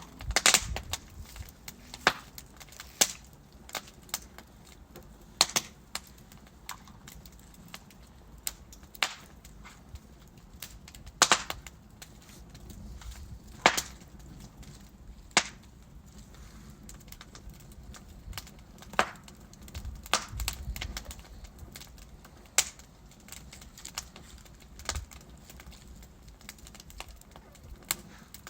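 Wood fire burning in a fireplace: logs crackling and popping with sharp, irregular snaps every second or so over a low steady hiss, and a soft rumbling swell of the flames about two-thirds of the way through.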